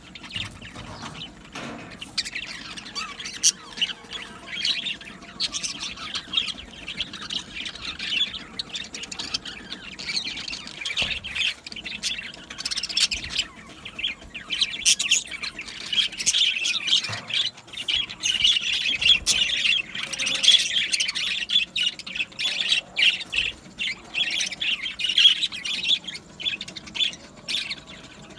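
A flock of budgerigars chattering, with dense warbling, chirps and short squawks.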